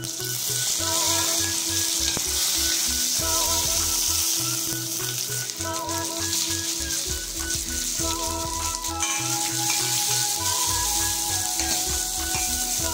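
Curry leaves hitting hot oil with mustard and fennel seeds in a stainless steel kadai, the sizzle starting sharply as they go in and running on steadily. About halfway through, chopped onions are tipped in and stirred with a steel spoon as the frying continues, over background music.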